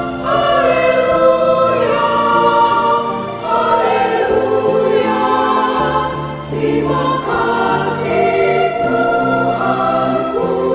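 Mixed church choir singing an anthem in sustained chords, with a low bass part beneath the voices.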